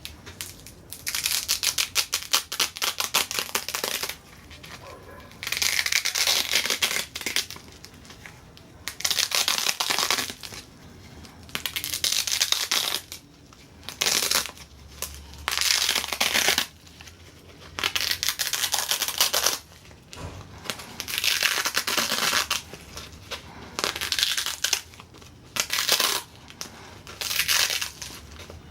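Repeated bursts of crackling, tearing noise, about ten of them, each lasting one to three seconds with short pauses between.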